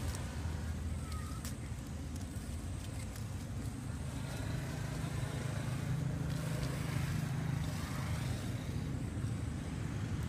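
A motor engine running steadily as a low rumble, louder for a few seconds in the middle, with a few faint clicks.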